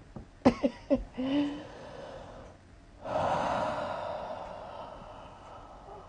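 Two sharp pops from a woman's back as it is pressed, about half a second and a second in, mixed with her gasping laughter; then a long breathy exhale that fades away.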